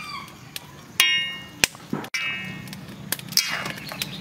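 A metal utensil striking a stainless steel pot of boiling noodles: a sharp clang about a second in that rings on briefly, a second ringing strike a little after two seconds, and a few lighter knocks. A steady low hum runs underneath.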